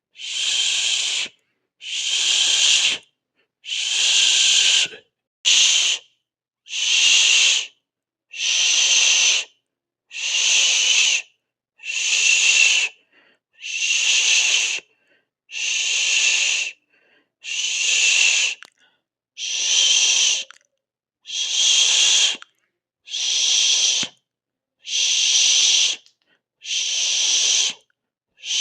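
A person hissing through the teeth, a repeated long 'shhh' or 'sss', about a second each with a short pause for breath between, roughly one every one and a half to two seconds.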